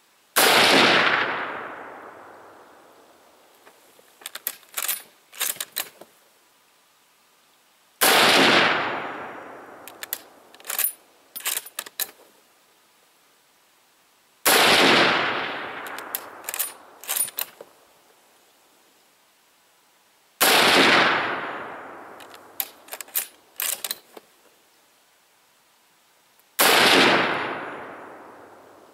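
Five shots from a Mosin-Nagant 91/30 bolt-action rifle in 7.62x54R, about six seconds apart, each dying away over about two seconds. Between the shots, quick metallic clacks of the bolt being worked to eject the spent case and chamber the next round.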